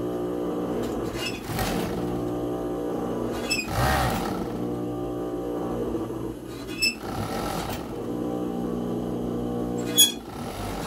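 Sewing machine running in steady stretches as it stitches a seam through fleece, slowing or stopping briefly a few times, with a sharp click near the end.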